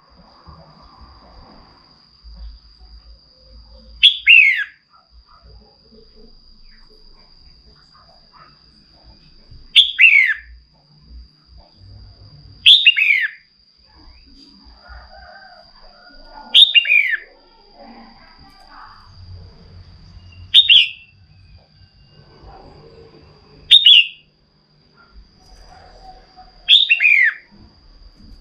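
Female red-whiskered bulbul calling: seven short, sharp notes, each falling quickly in pitch, repeated about every three to four seconds. These are the calls used to rouse male bulbuls. A faint steady high tone runs underneath.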